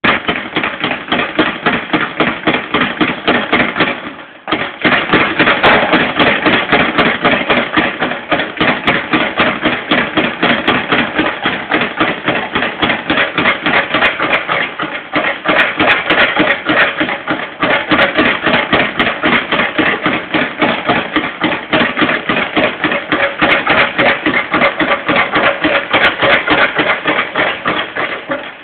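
Leather speed bag being punched in a fast, steady rattle, the bag knocking against its round wooden rebound board and fists in a continuous triple-beat rhythm. The rhythm breaks off briefly about four seconds in, then picks straight back up.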